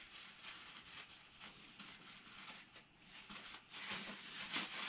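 Faint rustling of a paper towel and light ticks from small scissors being handled, a little louder near the end.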